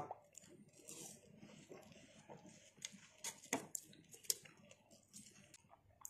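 Faint handling noises close to the microphone: a scattering of soft clicks and rustles, a few slightly sharper ticks a little past the middle, with no speech.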